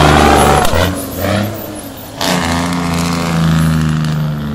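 Heavy diesel engines of loaded sugar-cane semi-trucks passing close by. The first truck's engine sound falls away about a second in, and a second truck's engine comes up loud about two seconds in and runs on as it passes.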